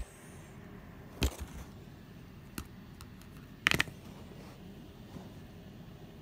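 A few sharp clicks and knocks from handling: one at the start, one about a second in, a small one in the middle and a quick double knock a little before four seconds in, over a faint steady hiss.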